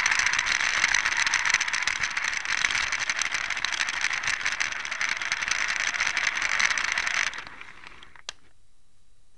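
High-speed LEGO train running fast on plastic LEGO track: a steady clattering whir of motor and wheels over the track joints, which stops abruptly about seven seconds in. One sharp click follows about a second later.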